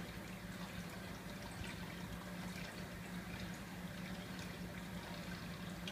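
A running reef aquarium's water: a steady trickle with small drips and splashes, over a low steady hum.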